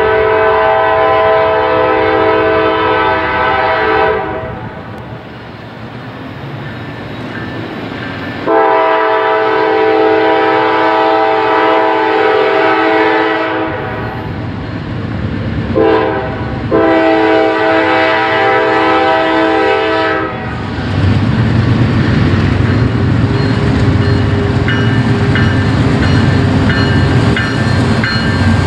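Diesel locomotive air horn on a Norfolk Southern GE Dash 9-40CW blowing the grade-crossing signal: long, long, short, long. Then the two GE diesel locomotives pass close with a steady low engine rumble as the empty coal hoppers start rolling by.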